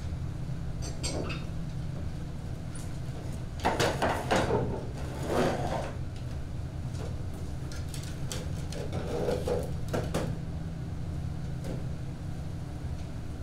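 Knocks, bumps and scrapes of wooden furniture and props being set on a stage during a blackout scene change, with the loudest cluster about four seconds in and more near the middle. A steady low hum lies underneath.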